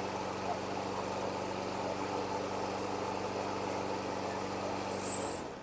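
Honda GCV170 single-cylinder engine on a Honda HRN216 walk-behind mower running steadily, then shutting off and winding down near the end, with a brief high hiss as it stops. It runs with a slight vibration, not a terrible imbalance but noticeable, which the owner suspects is a bent blade adapter throwing the blade off balance.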